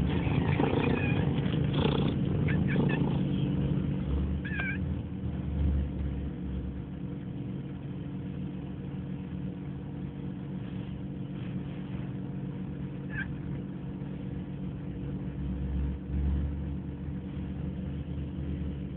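A domestic cat's loud screaming calls for the first three seconds, then two short, high chirps, one about five seconds in and one near thirteen seconds. A steady low hum runs underneath.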